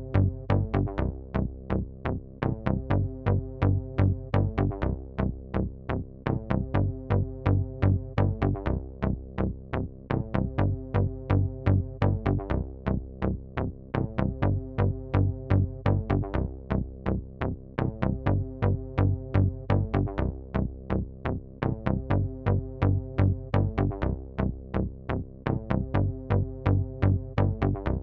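Background electronic music with a steady drum-machine beat over a bass line and held chords.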